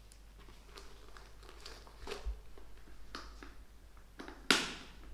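Tissue paper rustling and crinkling as hands rummage through a gift box, with scattered light handling ticks and one sharp, louder crinkle about four and a half seconds in.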